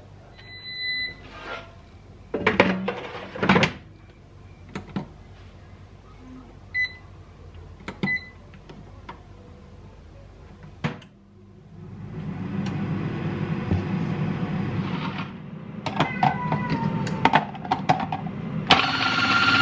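Clatter of an air fryer basket and wire rack being handled, and short electronic beeps from a digital air fryer as its control dial is set. A few seconds of steady whirring follow. Near the end a food processor's motor starts loudly, shredding carrots.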